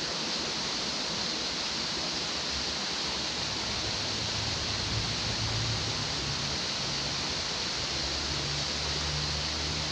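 Steady, even rush of water spilling into a canal from a small weir or side inflow, a constant hiss with no breaks.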